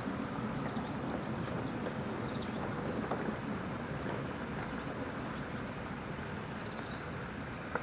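Steady rushing outdoor background noise with faint high chirps scattered through it.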